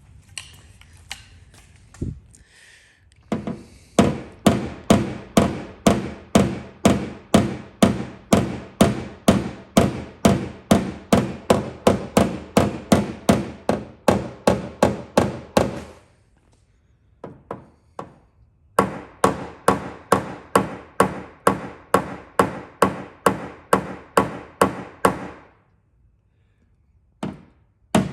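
Rhythmic tapping or knocking, about three knocks a second, in two long runs with a few single knocks around them, each knock ringing with a steady tone.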